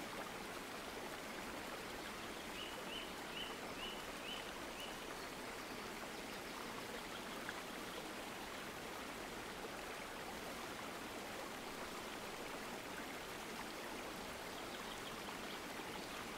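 Steady rushing noise like flowing water or rain, with a quick run of about six faint high chirps a few seconds in.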